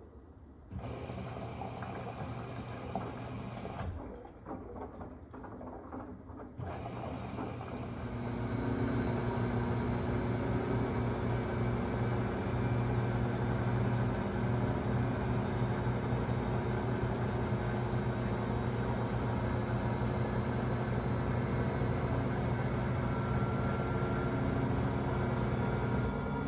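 Drain pump of a Samsung WW25B6900AW front-load washer humming as it drains, with a short break after a few seconds. About eight seconds in it steps up to a louder, steady buzz with a low hum and a higher whine: the pump running with no water left to drain.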